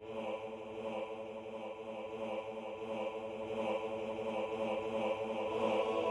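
Synthesized male-choir voices from a MIDI score playback: the basses alone chant one low repeated note in a quick, accented rhythm, soft and growing louder. Near the end the upper voices join with a soft sustained hum, filling out the chord.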